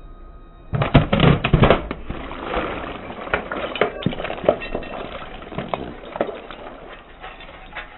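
Brittle objects being crushed: a loud burst of crunching and snapping starts about a second in, then thins to a steady crackle of smaller breaks.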